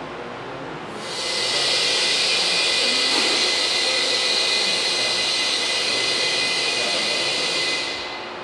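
Loud, steady hiss of rushing compressed air from the pneumatic debris-impact cannon rig, with a thin steady whistle in it. It starts about a second in and stops shortly before the end, with no impact in it.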